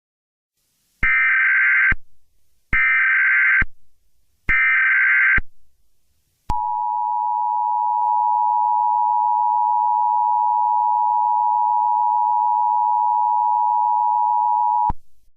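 Emergency Alert System (EAS) alert opening: three short bursts of SAME digital header data, each just under a second, then the two-tone EAS attention signal. The attention signal is a steady chord held for about eight seconds that cuts off suddenly.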